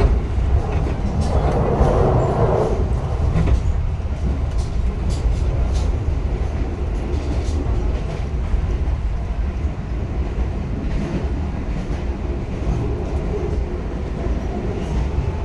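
Mataram passenger train running at speed: a steady low rumble with faint clicks of the wheels on the rails, and a brief louder rush about a second or two in.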